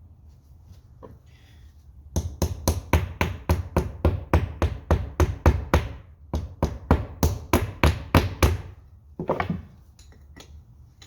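Rapid hammering, about five blows a second, in two runs of a few seconds each with a short pause between. A brief scraping sound follows near the end.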